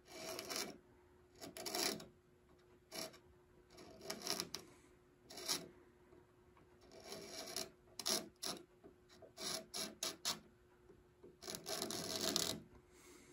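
A sharp wood chisel scraping thick old finish off a carved solid-rosewood rope molding on a piano case. It goes in short, irregular scraping strokes, about one a second.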